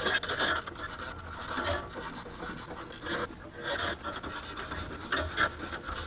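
Irregular scraping and rubbing as a Catalina 25's swing keel is cranked up a little, shifting against the hull and the hands steadying it.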